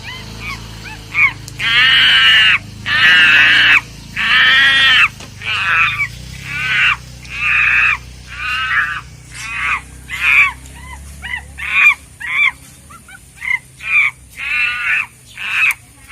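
Geese honking over and over, about twenty calls. The first few are long and loud, then shorter honks follow more quickly.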